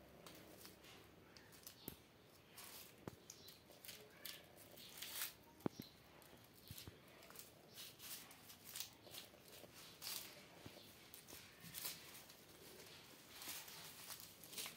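Kittens scrambling and wrestling on a pile of onions and a cloth sack, rustling the dry papery onion skins: faint, scattered crackles and scratches with a few sharp clicks.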